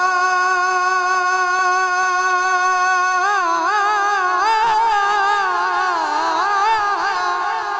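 Naat singing: a male voice holds one long steady note for about three seconds, then breaks into quick wavering turns up and down around the same pitch.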